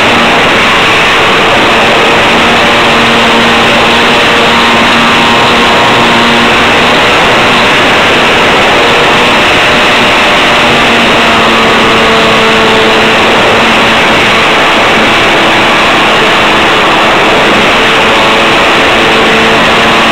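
RC model plane's motor and propeller running hard, heard from a camera mounted on the plane: a loud, steady drone mixed with rushing air, its pitch shifting slightly now and then as the throttle changes.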